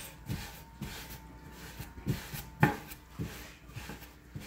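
Hands shaping a ball of sourdough on a floured wooden board: soft, irregular scuffs and light thumps as the dough is pushed down at the sides and tucked under to tighten its surface, with one sharper knock a little past halfway.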